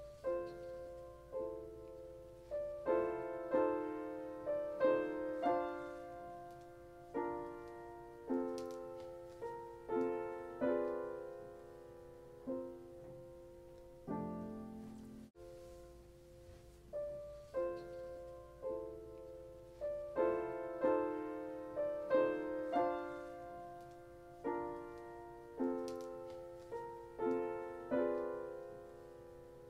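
Solo piano playing a slow, gentle piece, each note struck and left to ring out; the same phrase seems to begin again about halfway through.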